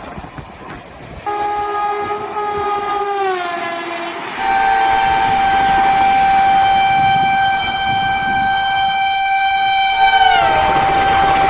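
Indian Railways WAG-12 electric locomotive horn: a first blast about a second in that slides down in pitch, then a louder long, steady blast whose upper tones drop in pitch near the end while one tone carries on.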